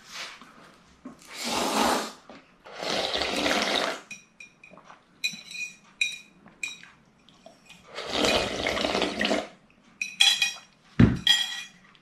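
A person slurping noodle-soup broth from a bowl in three long slurps, with chopsticks clinking against the glass bowl in between. A dull knock near the end.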